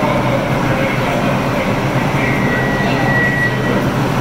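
New York City subway train standing at the platform with its doors open, giving off a steady hum and rumble from its equipment. A thin high tone sounds for about a second midway.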